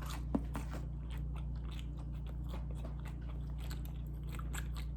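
A person chewing food close to the microphone: wet, irregular mouth clicks and smacks, with one sharper click about a third of a second in.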